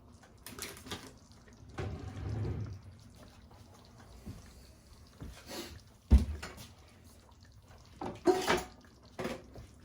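A metal spoon knocking and scraping in a pot and sauce being spooned and dripped onto a plate: scattered clinks and knocks, a short wet pouring sound about two seconds in, and one heavier knock about six seconds in.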